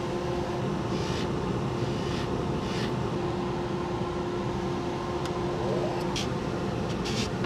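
Bench polishing motor running steadily with a hum, its spinning wheel giving a few short, high rasps as a silver ring is pressed against it.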